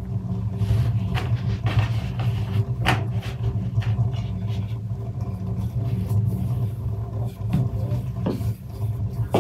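Wooden rolling pin rolling dough out across a large wooden board, giving a steady low rumble with a few light knocks and taps.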